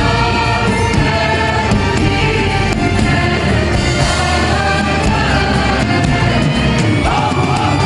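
A woman singing a Turkish nasheed, an Islamic devotional song, over a full instrumental accompaniment with a steady percussion beat.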